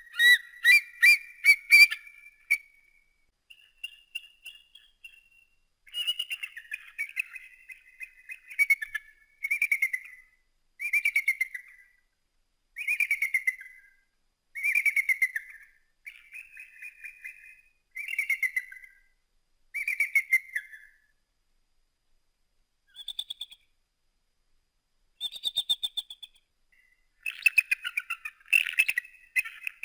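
Eagle calling: a series of high, chittering whistled calls, each about a second long and repeated every second or two, with a short gap after the middle and a denser run of calls near the end.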